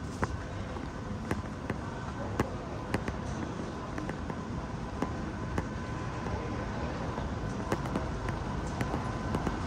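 Steady background hum and rumble of a large busy space, with faint steady tones and a dozen or so sharp clicks and taps scattered irregularly through it.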